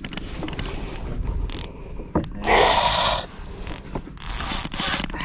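Fishing reel mechanism clicking and whirring in uneven bursts, loudest about halfway through and again near the end.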